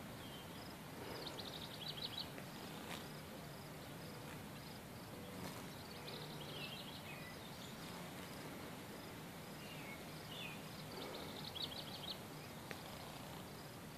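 Quiet outdoor ambience: small birds chirping, with two short rapid trills, over a steady low hum.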